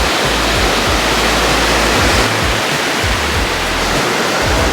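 Ocean surf washing in a steady loud rush, with wind buffeting the microphone in low rumbles.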